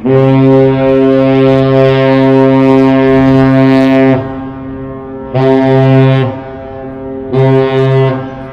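Great Lakes freighter's air horn sounding one long blast and two short ones, the master's salute, with a steady deep pitch. The long blast lasts about four seconds and the two short ones about a second each.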